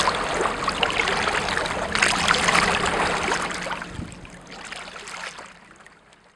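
Choppy water splashing and lapping under a low, steady engine hum. The hum stops about four seconds in and the splashing fades out near the end.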